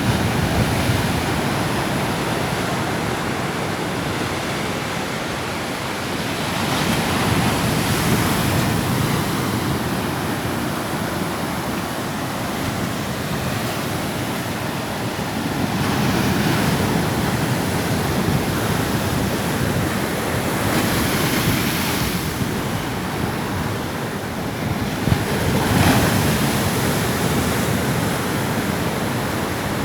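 Ocean surf on a sandy beach: a continuous wash of breaking waves, swelling louder as each breaker comes in, about every four to six seconds, with wind on the microphone.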